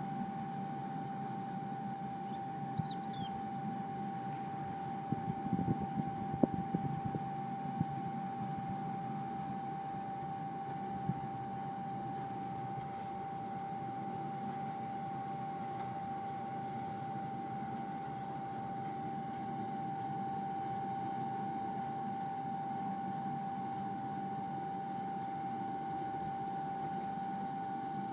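Fertilizer mixing machine running steadily: an even mechanical hum with a constant high whine over it, and a few light knocks about five to eight seconds in.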